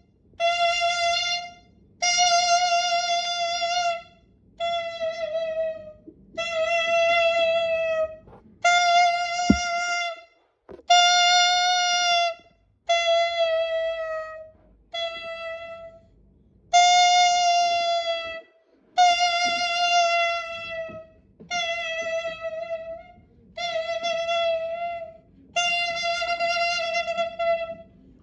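Clarinet imitating a child crying: a string of wailing notes, each a second or two long, most sagging down in pitch at the end, with short gaps between them like sobs.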